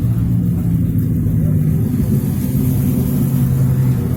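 A large engine running steadily at a low, even pitch.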